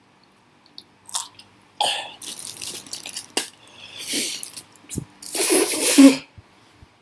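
A man coughing and gagging in a run of harsh bursts, a reaction to having just eaten a crispy fried insect; the loudest and longest comes near the end. A short low thump about five seconds in.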